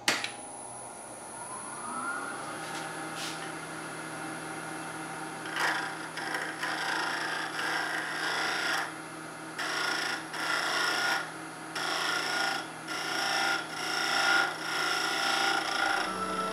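Powermatic wood lathe switched on with a click, its motor whine rising for about two seconds and then running steadily. From about five seconds in, a gouge cuts the spinning pecan bowl blank and its epoxy putty inlay in repeated passes, each a second or so of scraping with short breaks between, trimming the putty flush.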